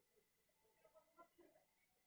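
Near silence: faint room tone with a thin steady high whine and a few soft ticks about a second in.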